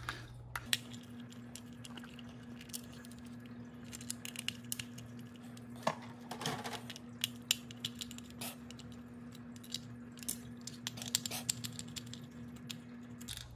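Screws being taken out of a Big Mouth Billy Bass's plastic gearbox with a small screwdriver: scattered light clicks and scrapes of metal on plastic, under a faint steady hum.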